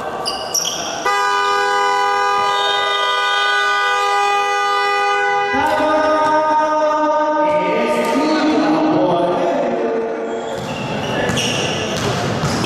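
A basketball game buzzer sounds one long, steady horn tone for about four and a half seconds, starting about a second in. Held tones that change pitch step by step follow for several seconds, and a ball bounces on the court near the start and again near the end.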